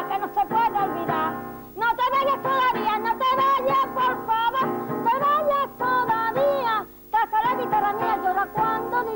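A woman singing solo to her own strummed acoustic guitar, with short breaks between phrases about two seconds in and again about seven seconds in.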